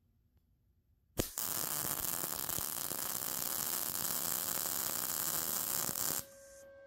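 ArcCaptain MIG 200 MIG welder running a short bead on 1/16-inch thin-wall mild steel square tubing. A sharp click as the arc strikes about a second in, then a steady crackling, hissing buzz for about five seconds that cuts off suddenly. It is set at 17 volts and 5.5 wire speed, which the welder judges not quite hot enough.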